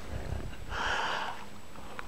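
A short sound from a beluga whale about midway through, over a low rumble.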